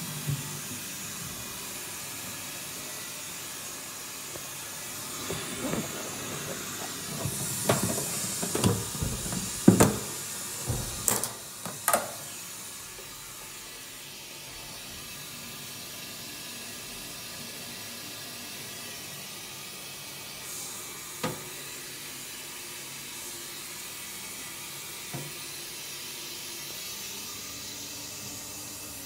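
Dudley Elite toilet cistern refilling with a steady hiss. A cluster of sharp knocks and clicks comes between about five and twelve seconds in, with single knocks later on.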